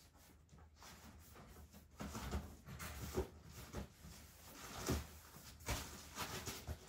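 Handling noises: rustling with a few light knocks, starting about two seconds in, as things are gathered and put into a container.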